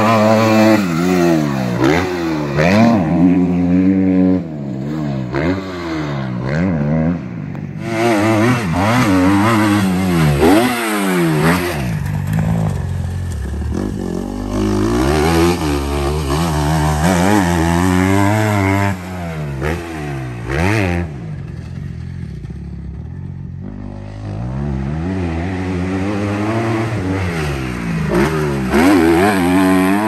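Kawasaki KX 250F four-stroke single-cylinder motocross bike ridden hard around a dirt track, its engine revving up and dropping off over and over. The sound fades somewhat for a few seconds about two-thirds of the way through, then grows loud again near the end.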